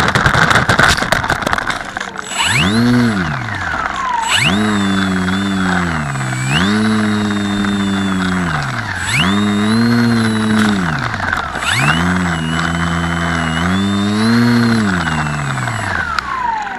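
Small electric RC plane striking the dirt with a burst of knocks and scraping. It then sits on the ground while its electric motor and propeller are throttled up and down about six times, each burst rising in pitch, holding briefly and falling, with a high whine riding along. Near the end the motor spools down in one long falling whine.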